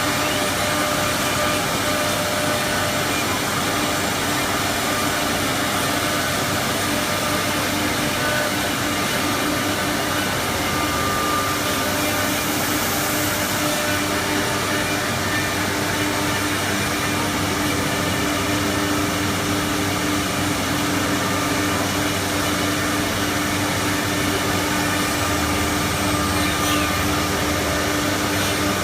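CNC router running steadily: a continuous hiss with a few held humming tones, like a spindle motor.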